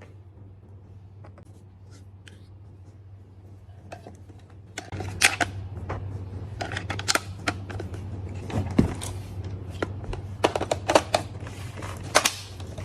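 Plastic clicks and clacks from a toy AWM sniper-rifle dart blaster being handled. A few faint clicks come first, then from about five seconds in a busy run of louder clacks, over a steady low hum.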